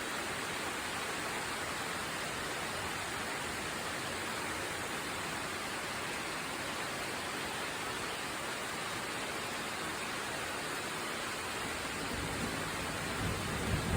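Steady rain falling, an even hiss, with a low rumble of thunder building near the end.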